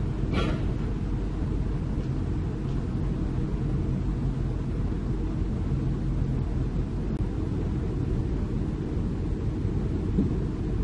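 Diesel excavator engines running steadily, a low rumble, with a short hiss about half a second in.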